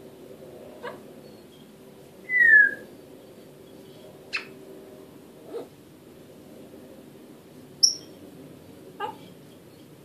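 Congo African grey parrot whistling and clicking: one short falling whistle about two and a half seconds in, the loudest sound, then scattered clicks and a brief high chirp near the end.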